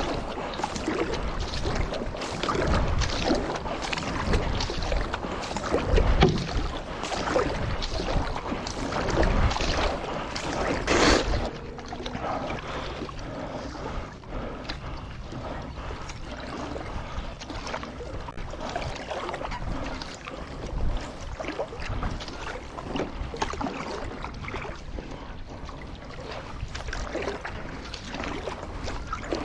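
Paddle strokes and water splashing around a stand-up paddle board, heard from a mouth-held bite-mount camera. The first eleven seconds are louder, with a low rumble, and after a short louder splash about eleven seconds in it settles to softer, steadier water sounds.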